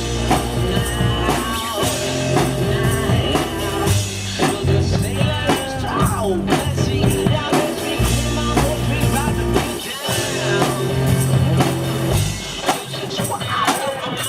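One-man band playing live music: a steady drum beat with tambourine over a bass line that changes note about every two seconds, with a melody line above.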